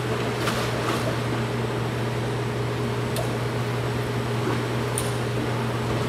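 Steady low mechanical hum of machinery with a constant tone over it, in a room around a large aquarium tank. A few faint light splashes sound as a gloved hand dips into the water.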